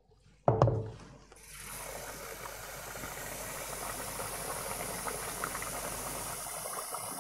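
A knock about half a second in, then a kitchen tap running water into a pot: a steady rush of water as the pot fills.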